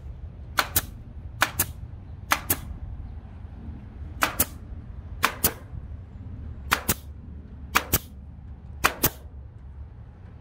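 Staple gun driving staples, each shot a sharp double click, fired about once a second at an uneven pace.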